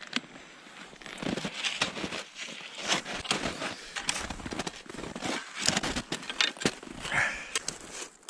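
Irregular crunching and rustling of snow and ski gear, with scattered sharp clicks, as cross-country skis are handled and put on.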